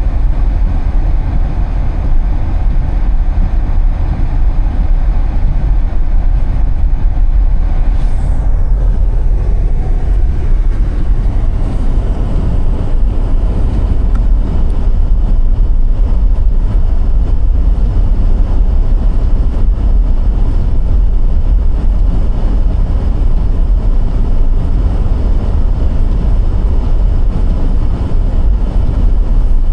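Car driving on a snowy road: steady low rumble of tyres and engine. About eight seconds in, a brief hiss falls in pitch.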